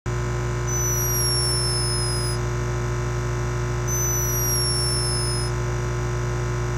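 Sleeping hummingbird "snoring": two thin, high-pitched squeaks, each falling in pitch over a second or so, about three seconds apart, over a steady low hum.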